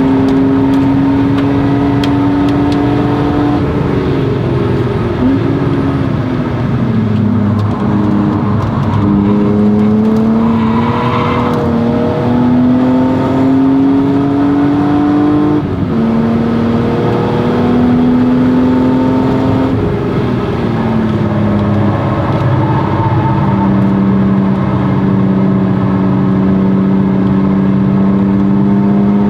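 1997 BMW E36 M3's straight-six engine with a Stromung cat-back exhaust, run hard on track: the revs climb slowly under load, fall away gradually twice as the car slows, and drop sharply once about halfway through, like an upshift.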